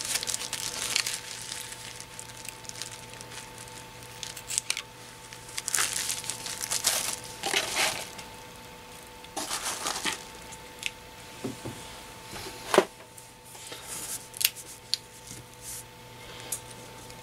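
Plastic bubble wrap crinkling and rustling in several irregular bursts as it is pulled out of a cardboard shipping box, with one sharp knock about two-thirds of the way through. A faint steady hum runs underneath.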